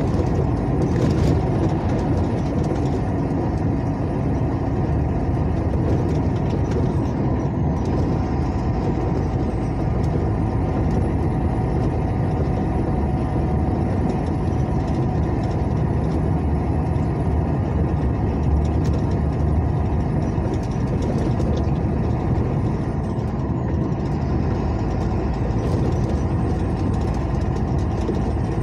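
Truck being driven along a highway, its engine and road noise heard from inside the cab as a steady low rumble.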